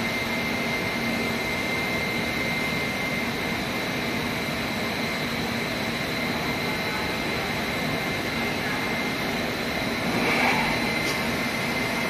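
Plastic recycling extrusion line running, fitted with a self-cleaning screen changer and feeding a strand die: a steady machine drone with a constant high whine.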